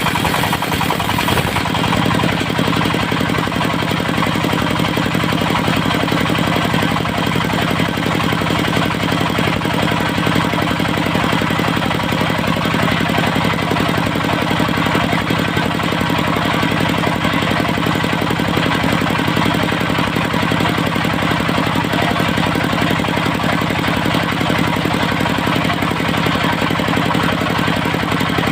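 Diesel engine of a mobile circular sawmill running at a steady speed.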